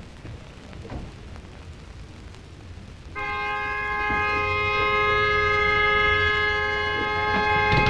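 Two-note train horn sounding in one long, steady blast that begins about three seconds in and swells slightly, over a low rumble.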